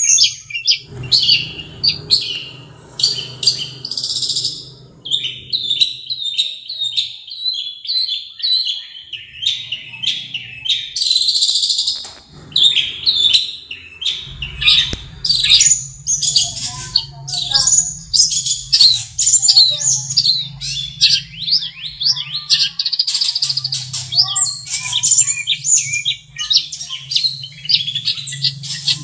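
Long-tailed shrike singing a rapid, nearly unbroken run of varied short chirps and whistles. A low steady hum runs beneath most of it.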